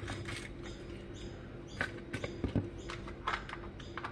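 Light clicks and taps of small snack containers and treats being handled and packed, about five sharp ones in the second half, over a steady faint hum.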